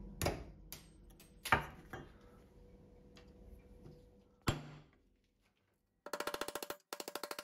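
Sharp clicks and knocks of small metal parts, a blind rivet and a galvanized steel angle bracket, handled on a plywood board. Near the end come two short runs of fast, even ticking.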